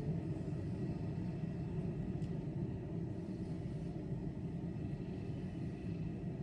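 Railway station ambience: a steady low rumble with a faint thin high tone running over it.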